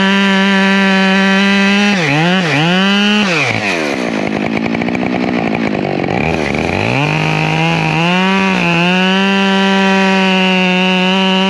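Husqvarna 572 XP two-stroke chainsaw at full throttle, cutting through an ash log. A few seconds in, the revs dip a few times, then fall well down as the throttle is eased. They climb back up and hold steady at full throttle, with brief dips as the chain bites into the next cut.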